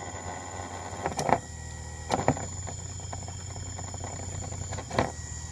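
Bare hard disk drive spindle motor, still driven by its controller board, spinning with a steady high whine over a low hum. A few sharp clicks break in about a second in, twice around two seconds, and once near the end.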